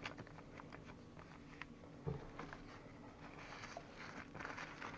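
Faint rustling and light scattered clicks of paper leaflets and packaging being handled, a little busier in the last second and a half.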